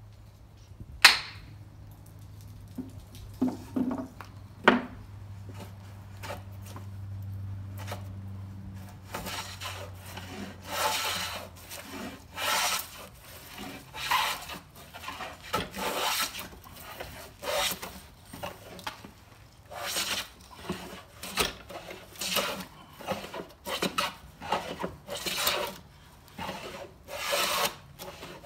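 A few sharp knocks in the first five seconds, as the plane is adjusted with a small wooden block, over a faint low hum. From about nine seconds in, a large wooden Chinese hand plane shaves a construction-grade 2x4 in repeated rasping strokes, about one every second and a bit.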